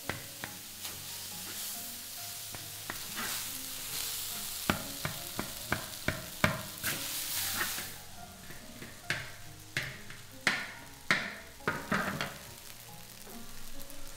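Fried rice sizzling in a large wok while a wooden spatula stirs and tosses it. The spatula scrapes and knocks against the wok many times, with sharp irregular strokes over a steady hiss.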